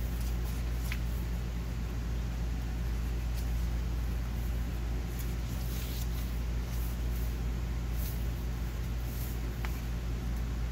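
Paper pages of a junk journal being turned and handled: scattered faint rustles and soft clicks over a steady low background hum.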